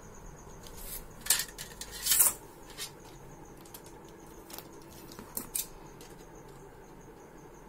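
Scattered light metallic clinks and taps from a thin tin-can sheet being handled on a tabletop; a few separate knocks at uneven intervals, the loudest about a second and two seconds in.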